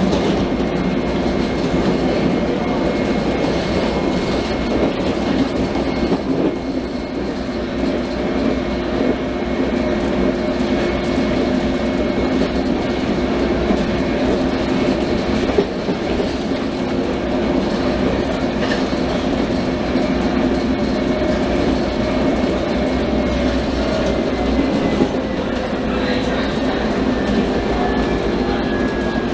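Interior running noise of a UTDC H6 subway car: a steady rumble of wheels on rail with a humming electric motor whine and a few clicks over rail joints. The whine falls in pitch over the last few seconds as the train slows.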